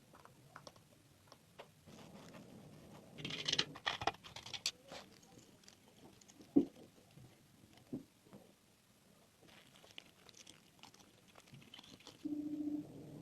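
Light clicks, taps and scraping from small parts being handled, with a scratchy rustle about three seconds in, a sharp click about six and a half seconds in, and a short low hum near the end.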